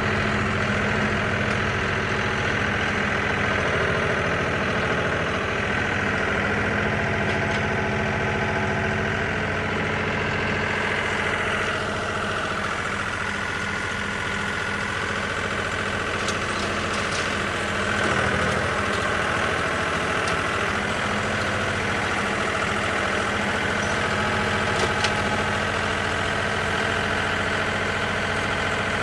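Tractor engine running at a steady speed while the Allis-Chalmers Roto-Baler works hay, with a few sharp clicks about halfway through and again near the end.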